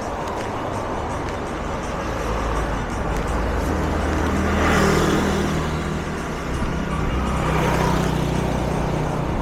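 City street traffic: a steady low engine hum, with vehicles passing close by, the loudest about five seconds in and another near eight seconds.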